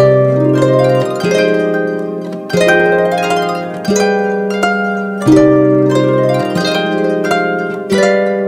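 Background music of plucked, harp-like strings, with new notes and chords struck about once a second and left to ring out.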